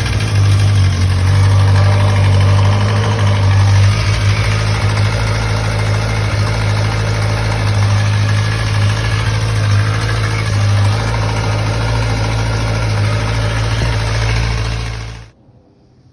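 2011 Kawasaki ZX-10R's inline-four engine idling steadily just after starting, then switched off about fifteen seconds in.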